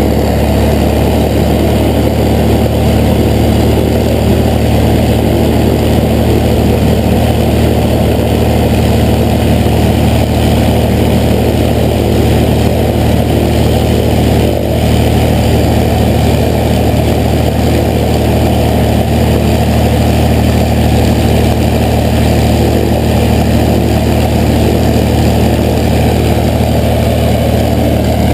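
P-51 Mustang's V-12 piston engine idling steadily, propeller turning, as the aircraft taxies slowly.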